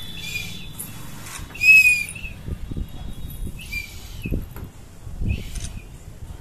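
A child's plastic toy whistle blown in four short, high toots, the second the loudest.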